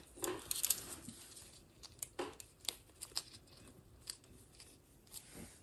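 Faint scattered clicks and rustling as gloved hands fit washers and isolators onto a screw in a perforated mesh radiator guard.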